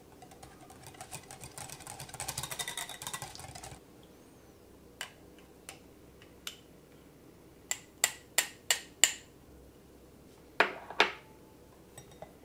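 A wire balloon whisk beats cheesecake batter in a glass bowl, a fast run of light clicks for about four seconds. Then scattered clinks and taps of a small glass dish and a metal mesh sieve as cornstarch is added and sifted: a quick series of five sharp taps, and two louder knocks a couple of seconds later.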